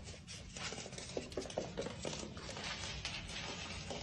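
Rapid, irregular clicks and taps, typical of a small pet's claws skittering on a hardwood floor as it scrambles with a sock.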